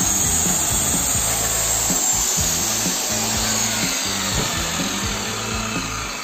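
Stanley circular saw running smoothly after its repair as it finishes a cut through a wooden board, its high whine fading over the first few seconds. Background music plays throughout.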